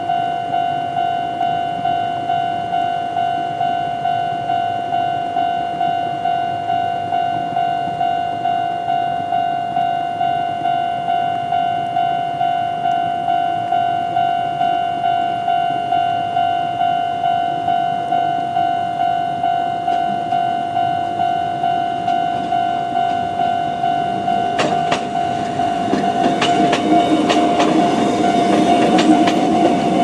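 Japanese level-crossing warning bell ringing steadily: the old-type standard electronic ding, about three strokes every two seconds. From about 25 seconds in, a Konan Railway 7000-series electric train approaches. Its wheels clack over the rail joints and a rumble builds as it reaches the crossing.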